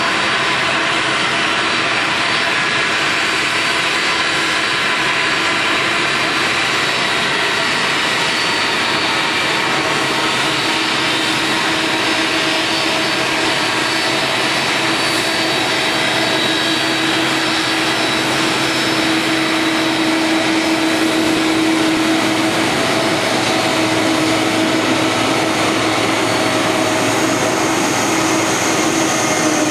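Twin-engine jet airliners' turbofan engines running: a steady rush of noise with a held whine, growing a little louder in the last few seconds.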